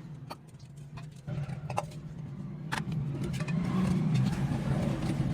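A few sharp metallic clicks from tools and parts being handled during a motorcycle engine teardown, over a steady low engine hum that grows stronger a little over a second in.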